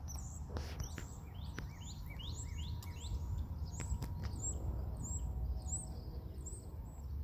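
Small bird chirping, a quick run of short notes repeated every half-second or so, over a low steady rumble.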